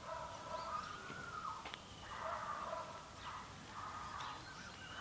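Crows cawing over and over, one call after another, with a few faint high bird chirps.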